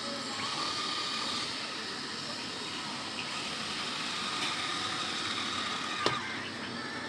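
Robot vacuum cleaner running: a steady whirring hiss with a faint motor whine, and one sharp click about six seconds in.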